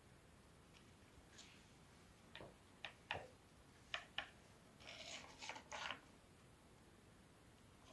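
A cat pawing at a wooden ball-track toy: a handful of sharp clicks from the wooden balls knocking in the track, then a brief clatter lasting about a second.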